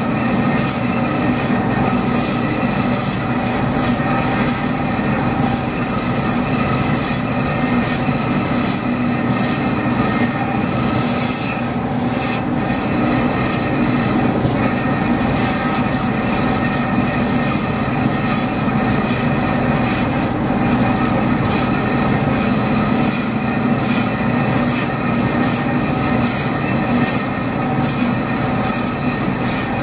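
DoAll vertical metal-cutting bandsaw cutting a curved profile through a metal plate. It runs steadily, with a constant whine and a regular fast ticking over the cutting noise.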